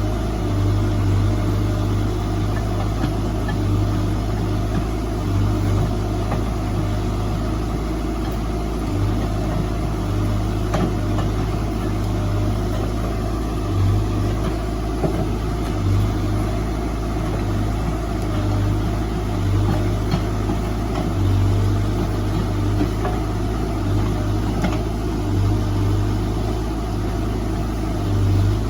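Diesel engine of a heavy earth-moving machine running steadily under work, a deep hum with small swells in level every second or two.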